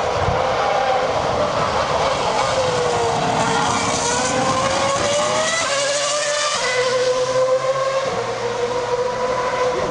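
Formula 1 car engine running at high revs, its pitch dipping, rising again and then stepping down suddenly about six seconds in.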